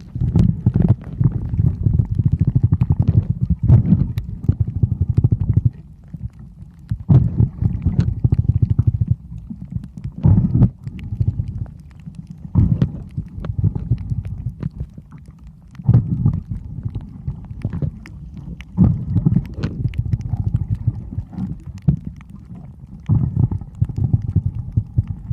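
Irregular low rumbling and buffeting on the microphone, coming in surges a few seconds long, with scattered sharp clicks.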